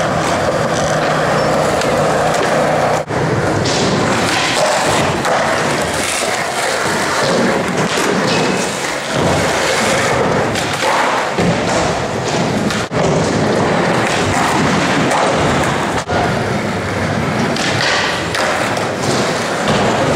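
Skateboard wheels rolling on concrete, with the thuds and clacks of boards hitting the ground during tricks and landings. The sound breaks off abruptly three times, where the clips change.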